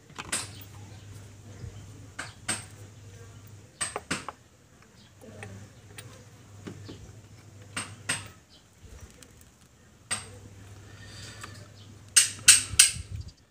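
Metal tools and parts clinking and knocking during a spark plug change, with a quick cluster of louder knocks near the end. A faint low hum runs underneath part of the time.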